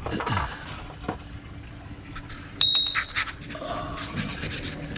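Small metal parts and hand tools clinking and tapping. A sharp, briefly ringing metallic ping a little past halfway through is the loudest sound.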